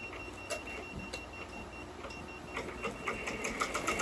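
A 15-needle commercial embroidery machine starting to stitch a cap: a thin high tone and a few separate clicks, then about halfway through the rapid, even tick of the needles sewing takes over and grows louder.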